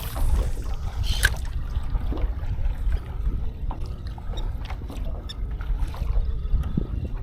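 Water lapping and trickling against a kayak hull under a steady low rumble of wind on the microphone, with a few small clicks and knocks.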